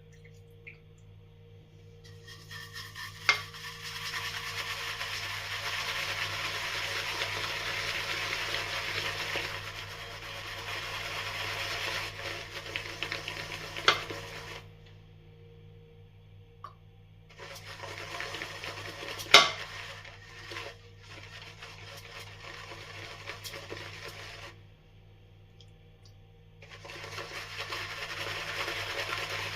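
Shaving brush whisking shave cream into a lather in a shave bowl: long wet, swishing stretches with short pauses between them, and a few sharp taps of the brush against the bowl.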